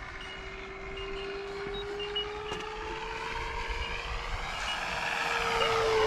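Electric FMS F4U Corsair RC model flying past: a steady motor-and-propeller tone that grows louder and rises a little in pitch as it approaches, then drops in pitch as it passes near the end.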